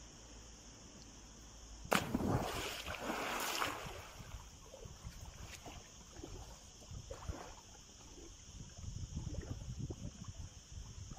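A person jumping feet-first off a diving board into a swimming pool: a sudden loud splash about two seconds in that lasts about a second and a half. It is followed by softer, irregular splashing and sloshing as he swims.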